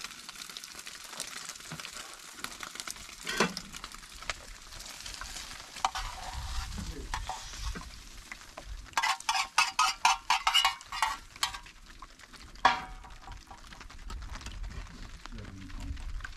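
Stirring and scraping in a cooking pan over a steady sizzling hiss, with a run of quick strokes about nine seconds in and a sharp knock a little later.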